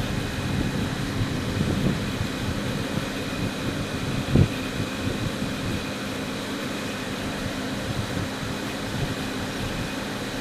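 Storm chaser's vehicle idling with its ventilation fan running: a steady rushing noise with a low hum. A short low thump comes about four seconds in.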